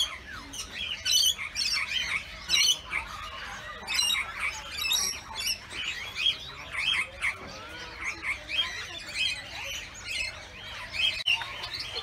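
Many small aviary birds chirping and calling at once: a dense run of short, high, overlapping calls with no pause.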